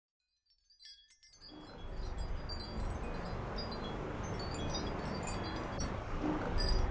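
Light, high-pitched chime tinkling, scattered irregular strikes starting about a second in, over a low steady rumble that fades in at the same time.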